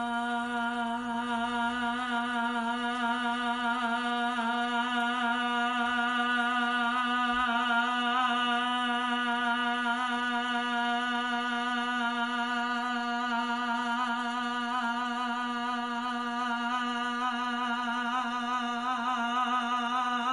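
A woman's voice holding one sung note, open-mouthed, at a steady pitch without a break, kept going as long as she can. The note wavers slightly.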